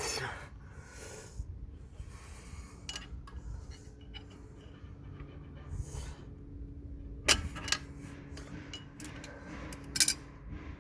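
Tools and metal parts being handled while working on a car: scattered knocks and clinks over a low rumble, the two loudest about seven and ten seconds in.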